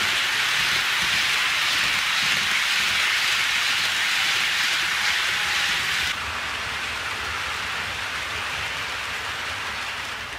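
HO scale model freight train rolling along the track, a steady rushing hiss of the cars' wheels on the rails. It drops abruptly to a quieter level about six seconds in, then fades toward the end.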